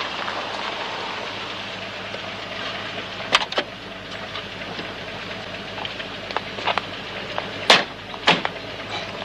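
Steady background rush with a few sharp knocks, loudest about a third of the way in and twice near the end, plus scattered smaller clicks.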